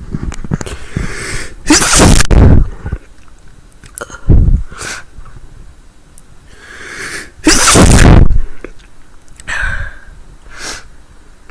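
A woman sneezing loudly twice, about two seconds in and again about eight seconds in, each sneeze led by a breathy in-breath. A short, loud burst of breath comes about four seconds in, and smaller breathy sounds fall between the sneezes.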